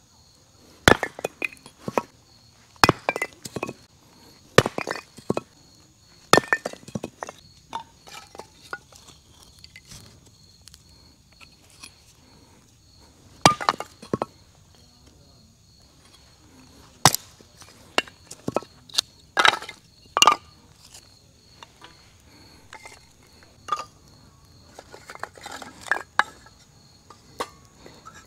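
Hard camp gear clinking and knocking as it is handled: a dozen or so sharp clinks with a short ring, in scattered clusters, with a pause in the middle.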